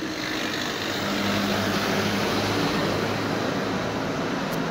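A motor vehicle's engine running steadily with a low hum, a little louder from about a second in, over a wash of noise.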